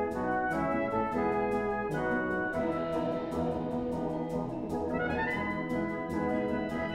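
Brass band playing held, shifting chords. The higher parts thin out about two and a half seconds in, and a brighter chord comes back in about five seconds in.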